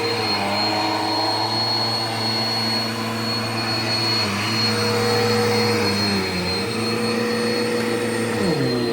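Vacuum cleaner running steadily, a high motor whine over a lower hum whose pitch shifts a little as it works, dipping briefly near the end.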